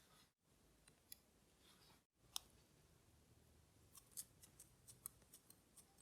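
Small, sharp clicks and ticks of watchmaker's tools handling the parts of a vintage Orient caliber 4694 movement during disassembly. There is one louder click about two seconds in, then a quick run of lighter clicks, broken by two brief drops to dead silence.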